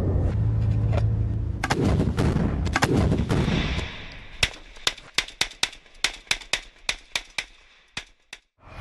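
Combat sound: a loud, deep rumbling blast lasting about four seconds, then a string of sharp gunshots, nearly four a second, for about three seconds.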